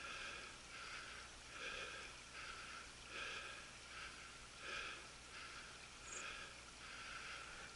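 Heavy, rhythmic breathing close to the microphone, a soft breath in and out about every three quarters of a second, as of a person winded from climbing a steep slope.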